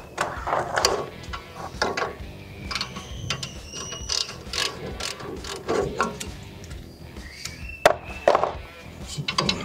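Hand ratchet wrench clicking in irregular runs as a nut on the front suspension's lower stabilizer is worked loose, with metal clinks and one sharp metallic knock about eight seconds in.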